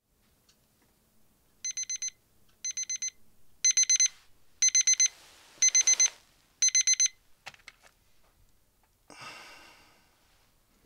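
Electronic alarm clock beeping in six bursts of about four quick high beeps, about once a second, growing louder. The beeping stops, followed by a few faint clicks and a short, softer noise near the end.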